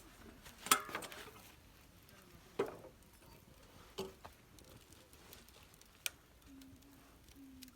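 Campfire wood crackling: a few separate sharp pops a second or two apart, the loudest about a second in.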